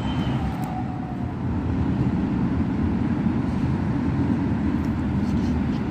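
Steady low rumble of traffic on the nearby toll road and flyover.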